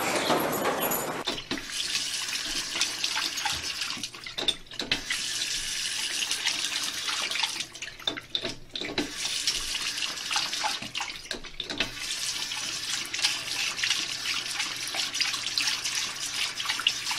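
Bathroom sink faucet running, a steady hiss of water with a dog's paw on the lever handle. The stream drops out briefly a few times.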